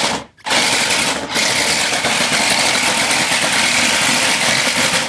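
Monster Jam Megalodon toy RC monster truck driving on a hardwood floor: its small electric drive motors whir loudly and its foam tyres run on the boards. It drops out briefly just after the start and again about a second in, then runs steadily until it stops at the end.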